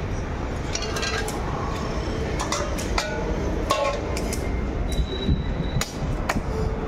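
Scattered sharp clicks and taps of a large knife on a wooden chopping block as a fish is scaled and cut, over a steady low rumble of background noise.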